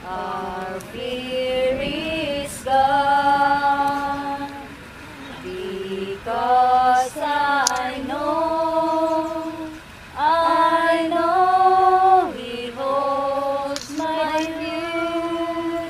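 A group of voices singing a slow hymn without accompaniment, holding long notes one after another.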